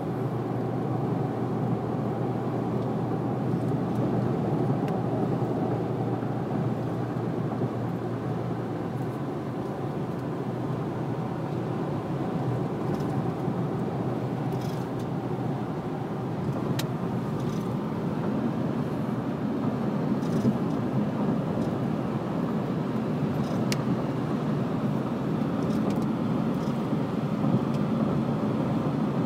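Steady road and engine noise heard from inside a car's cabin while it cruises along a paved highway, with a constant low hum and a few faint ticks.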